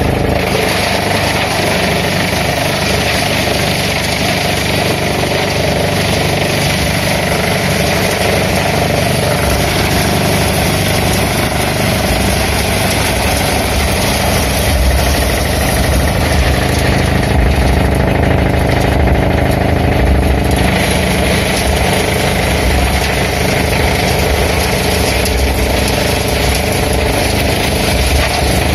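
Tractor-driven wood chipper running steadily as kinker (babul) branches are fed in and shredded, with the chips blown up the spout into a trolley: a steady engine drone under a dense noisy rush, with no break.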